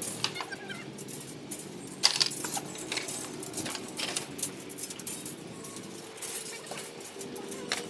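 Steel rebar stirrups and tie wire clinking and tapping against ribbed reinforcing bars as they are set and tied by hand: irregular light metallic clinks, with one sharper clink about two seconds in.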